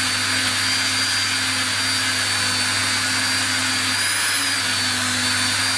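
Dremel rotary tool turning a flexible shaft with a small polishing pad, buffing metal guitar frets with polishing compound: a steady high-pitched motor whine over a hiss. The whine wavers briefly about four seconds in.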